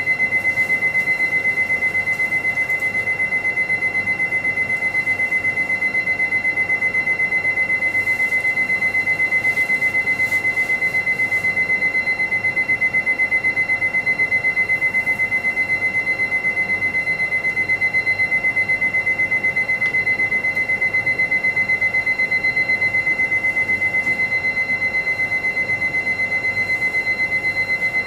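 A steady, high-pitched electronic tone, pulsing rapidly and evenly like an alarm, with fainter tones sounding beneath it.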